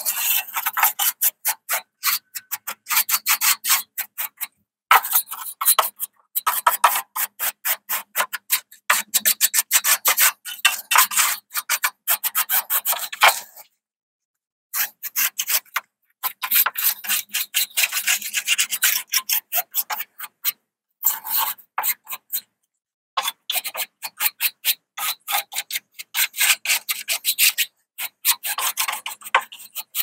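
Soft nylon bristle brush scrubbed in rapid, scratchy strokes across the aluminum fins of a Lennox condensing unit's coil, knocking off matted grass and cottonwood debris. The strokes come in runs with a few brief pauses.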